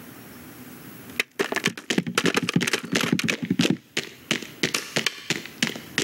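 Quick, irregular run of sharp hard-plastic taps and clacks, starting about a second in over a faint low hum: small plastic toy soldiers clattering along.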